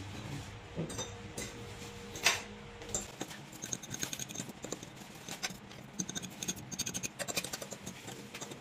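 Two metal forks scraping and clinking against a plate while tossing instant noodles: a run of irregular light scrapes and ticks, with one louder clink a little over two seconds in.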